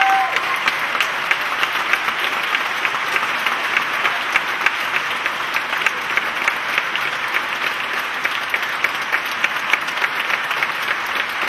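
Concert audience applauding: steady, dense clapping from many hands.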